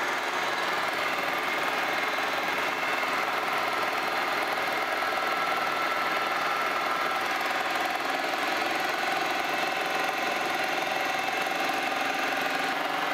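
Vertical milling machine running with its power feed engaged, a 60-degree dovetail cutter taking a steady cut along the edge of a cast iron gib. The cut is going smoothly, 'cutting like butter', with a steady, unchanging machining sound made of several held tones.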